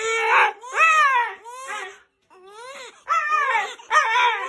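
A dog whining and crying in a run of short, arching, rising-and-falling calls, about six of them, with a brief pause about two seconds in.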